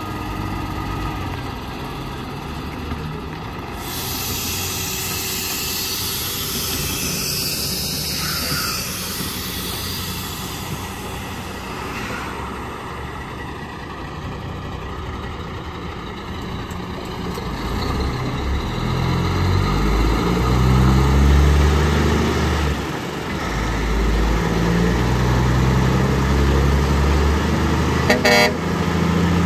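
Heavy trucks on the road: one goes by with a rush of tyre and wind noise, then a diesel truck engine runs loud and low, its pitch stepping as it works through the gears. A short horn toot sounds near the end.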